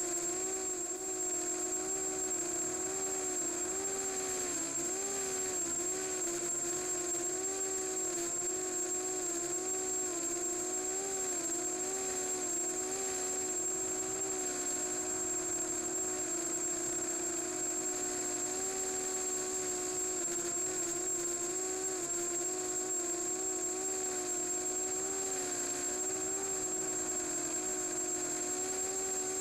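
DYS 320 FPV quadcopter's electric motors and propellers whirring in flight, the pitch wavering up and down as the motor speeds change, with a thin steady high whine above.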